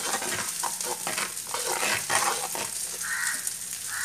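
A metal spoon stirring boiling gravy in a clay pot, scraping and knocking against the pot in repeated strokes over the bubbling of the boil.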